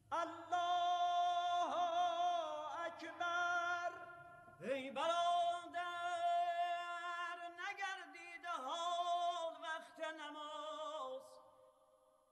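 A solo male voice chanting the Islamic call to prayer, unaccompanied, in long held high notes with wavering, trill-like ornaments. It comes in about three phrases and stops about a second before the end.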